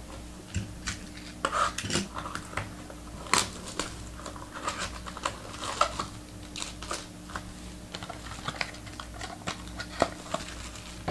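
Trading cards and their box and pack packaging being handled on a table: scattered light clicks, taps and rustles, with a faint steady hum behind.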